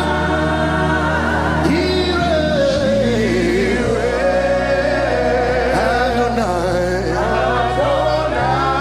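Slow gospel worship music played live: sustained chords over a low bass note that shifts every few seconds, with a singing voice gliding and wavering above it.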